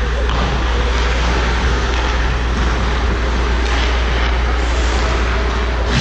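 Steady low rumble with an even hiss over it: the background noise of an indoor ice rink, with the play far away at the other end.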